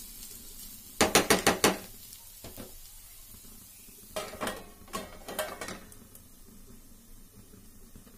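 A spatula clatters against a nonstick frying pan with a quick run of about five sharp clinks about a second in. A stainless steel plate holding water is set on the pan as a lid, giving more clinks about four to six seconds in. A faint sizzle of frying bitter gourd runs underneath.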